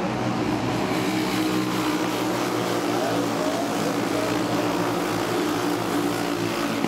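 A pack of racing dirt karts, their small Briggs & Stratton Animal four-stroke single-cylinder engines running hard, making a steady, many-layered buzzing drone as the field passes.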